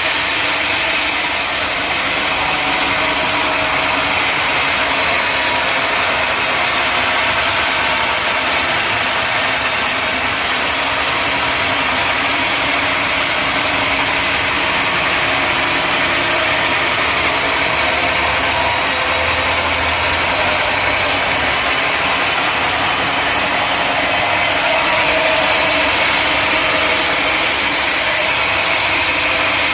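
Engine-driven sawmill machinery running steadily without a break.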